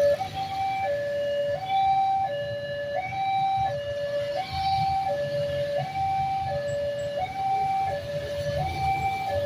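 Railway level-crossing warning siren sounding a steady two-tone alarm, switching back and forth between a lower and a higher note about every 0.7 seconds, the signal that the crossing is closing for an approaching train. A low rumble runs underneath.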